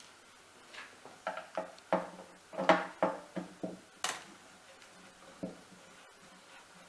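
Irregular clicks and clatters of a screwdriver and small plastic parts being handled while plastic Phillips head screws are worked on a charge controller's LCD module. The clicks come thickest in the first half, with one sharp crack about four seconds in.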